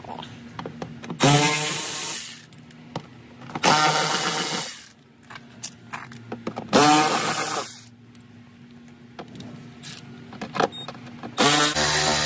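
Cordless ratchet backing out the plastic fender liner's screws: three whirring runs of about a second each, each rising in pitch as the motor spins up, with light clicks of handling between. Another run starts near the end.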